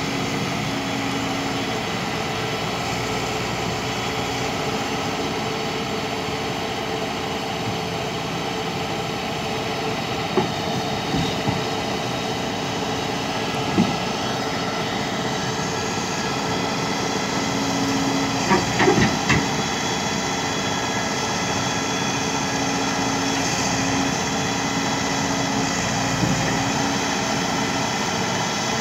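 Volvo crawler excavator's diesel engine running steadily under load with a hydraulic whine as it drives its tracks up onto a flatbed truck. Several short knocks from the steel tracks on the truck deck come about a third of the way in, again near the middle, and as a quick cluster about two-thirds through.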